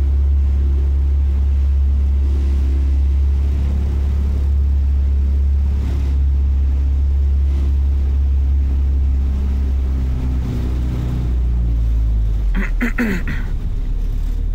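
Speedboat's engine running with a steady low drone as the boat moves across the water, dropping lower in pitch about ten seconds in and again near the end.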